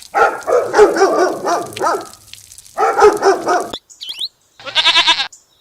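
Livestock bleating. Several animals call over one another for about two seconds, there is a shorter burst a second later, and a single quavering bleat comes near the end.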